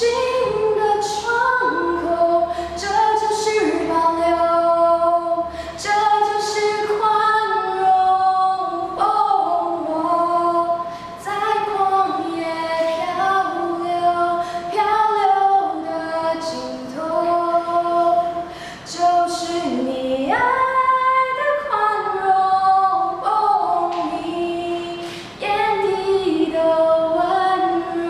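A teenage girl singing a Chinese song solo and unaccompanied, in sung phrases of held and stepping notes with short breaks for breath between them.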